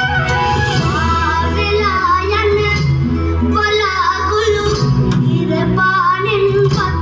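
Sinhala song playing: a high singing voice carries a gliding melody over music with a steady bass line.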